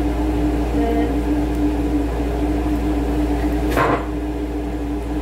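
Steady hum of a running kitchen appliance motor, with one sharp knock a little before four seconds in.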